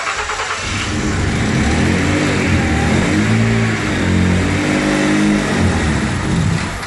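Opel 2.8-litre turbocharged V6 running on its first start after being swapped into the car, revved up and back down a few times.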